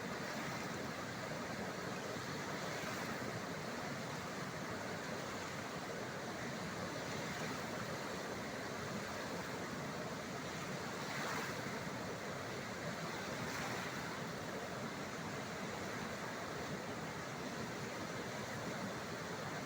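Athirappilly waterfall in heavy flood: a steady rush of falling and churning water with no break.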